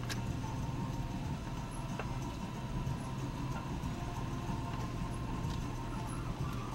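Engine and road noise inside a Nissan Xterra's cab as it drives down a rough dirt forest track: a steady low drone, with a sharp knock at the start and another about two seconds in.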